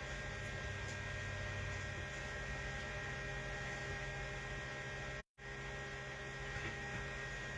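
Steady electrical hum with a faint hiss, made of several steady tones, with no other clear event; the sound cuts out completely for a moment about five seconds in.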